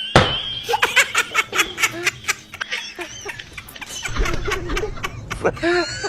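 People laughing, with a sharp thump right at the start.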